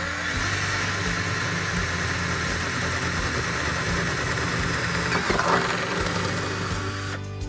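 Power drill running a 3/8-inch pilot-point twist bit through the Jeep's painted body sheet metal: a steady motor whine with metal-cutting noise, stopping about seven seconds in.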